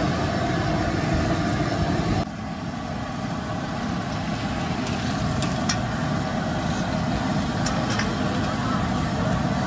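Steady city street traffic noise, a rumble of passing vehicles. The level drops abruptly about two seconds in, and a few short, sharp clicks stand out over it.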